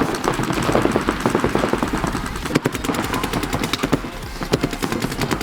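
Paintball markers firing in rapid strings, many sharp pops overlapping from several guns.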